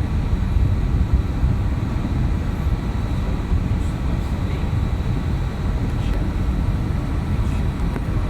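Steady low rumble of engine and airflow noise inside the cabin of an Airbus A321neo, even in level throughout.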